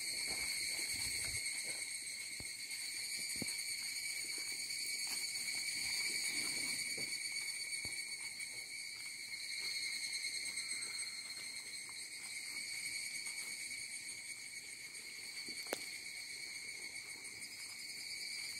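Cicadas buzzing in a steady, high-pitched chorus, with a few faint clicks and one sharper knock about three-quarters of the way through.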